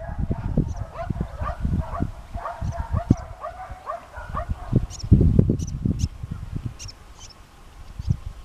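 Wind buffeting the microphone, with a string of short, high yelps from a working cattle dog in the distance over the first four seconds or so.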